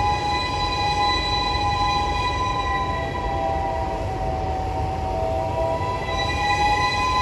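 Steam locomotive's whistle held in one long, continuous chord-like blast, its pitch sagging slightly about four seconds in and strengthening again near the end, over the low rumble of the approaching train.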